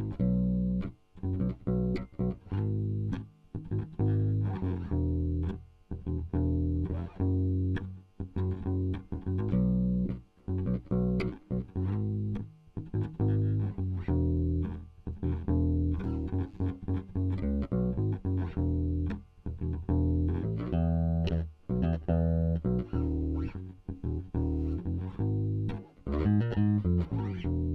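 Junior JB100 Jazz-style electric bass played fingerstyle through its bridge single-coil pickup alone, with the tone knob fully open: a run of plucked bass notes and short phrases with brief gaps between them.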